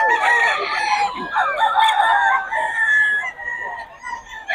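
Gamecocks crowing, several calls overlapping at different pitches, with a brief lull near the end.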